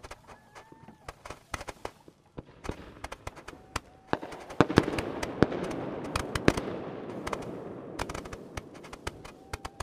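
Consumer fireworks firing from the ground: a run of sharp pops and crackles, thickening into a louder, dense crackle from about four and a half to eight seconds in.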